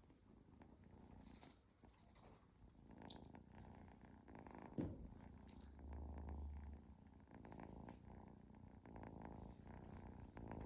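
A cat purring, faint and steady, close to the microphone. A brief knock about halfway through.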